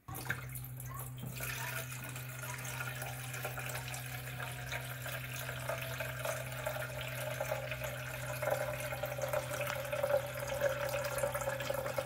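Water running from a water purifier's tap into a coffee maker's plastic water tank, a steady stream filling it, with a faint tone rising slowly as it fills over a steady low hum.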